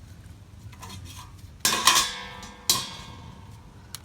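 Two sharp metallic clanks about a second apart, each leaving a ringing tone that dies away.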